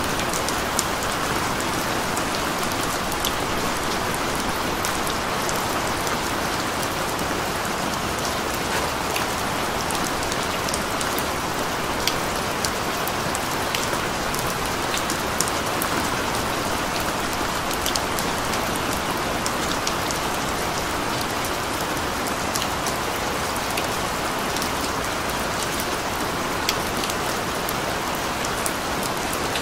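Steady rain: an even hiss with many scattered sharp ticks of single drops striking.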